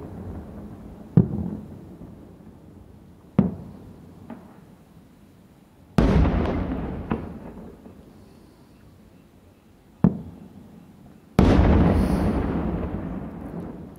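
Aerial firework shells bursting: a string of sharp bangs a second or a few seconds apart. The two loudest come about six and eleven seconds in, and each is followed by a long rolling rumble that slowly fades.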